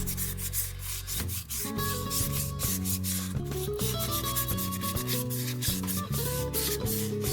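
Sandpaper rubbed by hand in repeated strokes over the inside surface of a motorcycle drum brake's drum, roughening the glazed, polished surface that makes the brakes squeal. Background music plays underneath.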